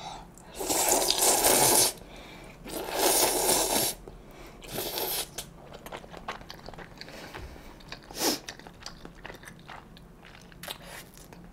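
A person slurping jjajangmyeon noodles in black-bean sauce in three long, noisy pulls over the first five seconds, then chewing more quietly, with small clicks and one short sound a little after eight seconds.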